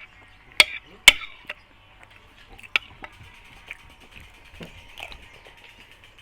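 Close-up eating sounds: a few sharp clicks and clacks, the two loudest about half a second and a second in, with smaller ones scattered after.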